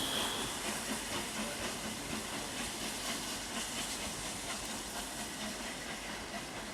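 Steam locomotive 60163 Tornado letting off steam in a steady hiss, with no exhaust beats.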